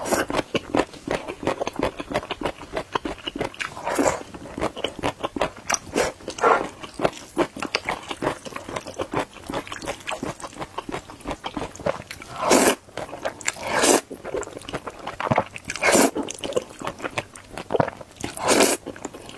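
Close-up mouth sounds of chewing sticky hot dry noodles coated in sesame paste: a steady run of quick, wet chewing clicks and smacks, with about half a dozen louder bursts spread through.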